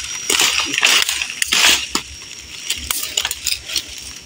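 Dry palm fronds and dead sticks crunching and crackling under footsteps and a hand pushing through the brush pile, a dense run of snaps in the first two seconds, then lighter scattered clicks.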